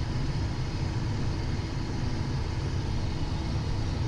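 Steady low rumble of airflow and twin turbofan engines inside a Cessna Citation XL's cockpit on short final approach.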